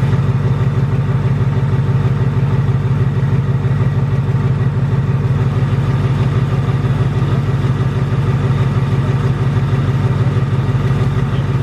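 Supercharged Ford Mustang GT Coyote 5.0 V8 idling steadily, with the engine tick owners call the "BBQ tick". The owner says it is louder than ever and seems to come from the bottom end.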